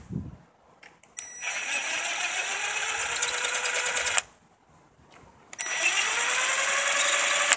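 Ridgid 18V cordless impact gun spinning out already-loosened, rusted motor housing bolts in two runs, about three seconds and then about two. Each run opens with a rising whine as the motor spins up.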